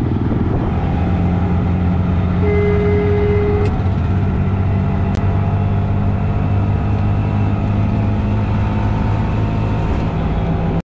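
A motor vehicle's engine running steadily while riding, over road noise. A brief steady high tone sounds about two and a half seconds in.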